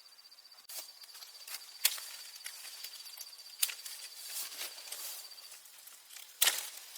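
An insect trilling steadily at a high pitch, stopping about five and a half seconds in, with several sharp snaps and rustles around it, the loudest snap near the end.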